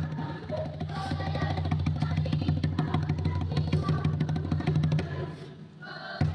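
Peruvian cajón slapped with bare hands in a quick repeating pattern of bass and slap strokes, over steady background music; the playing stops about five seconds in, with one more hit near the end.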